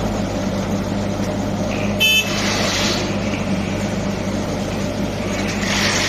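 Compact excavator's small diesel engine running steadily, with a short high beep about two seconds in and two stretches of hiss.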